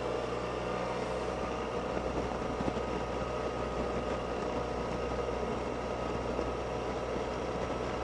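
Suzuki Burgman 650 maxi-scooter running at a steady pace, an even engine and road drone with no change in speed.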